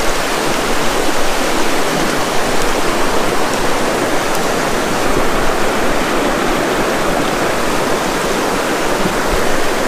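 Shallow mountain river running, a steady loud rush of water.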